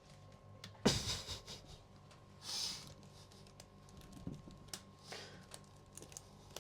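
Handling noises: one sharp knock about a second in, a short rustling hiss a couple of seconds later, and scattered faint clicks.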